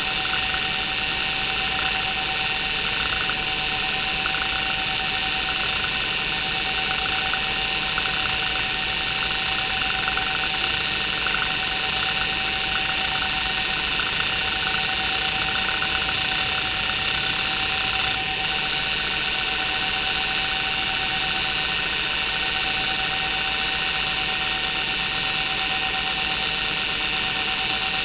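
Maxtor 8051A 41 MB hard drive running, its heads seeking back and forth in sweeping patterns under the hdmotion test: a steady whine and hiss from the spinning platters over fast, flickering seek chatter. The spindle bearings are worn and noisy. The seek sound breaks off briefly about two-thirds of the way in.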